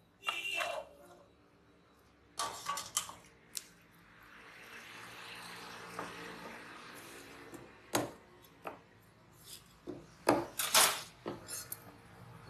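Stainless steel bowl tipped onto a wooden chopping block, clattering with a brief metallic ring as black pomfret slide out. It is followed by scattered knocks of fish and metal on the wood, a stretch of soft hiss in the middle, and a burst of sharp knocks near the end.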